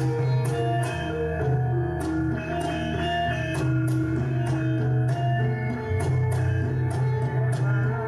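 Instrumental music: a melody of quick pitched notes over a sustained low tone, with a steady percussive beat of about two strokes a second.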